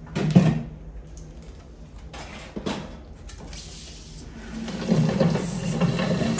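Glass tank and its wire-mesh lid being handled: a sharp knock as the lid comes off, a few light knocks, then a second or so of scraping and rubbing as the tank is tipped and set back down on the tile floor.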